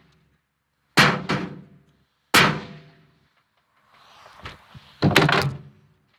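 Heavy thuds and knocks, each ringing out briefly: two single thuds about a second and a half apart, then a quick cluster of knocks near the end.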